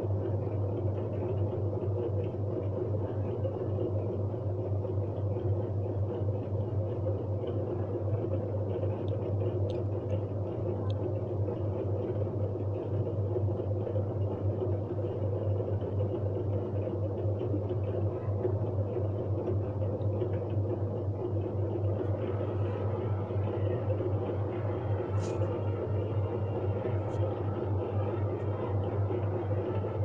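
A steady low hum with background noise at an even level, and a few faint light clicks as small plastic timer parts are handled.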